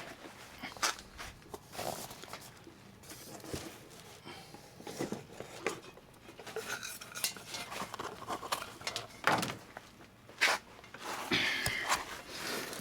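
Irregular light knocks, clicks and rustles of handling and moving about, with no steady machine sound.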